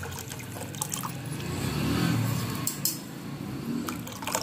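Buttermilk (thinned curd) pouring in a thick stream into ragi porridge in a clay pot, getting louder about halfway through.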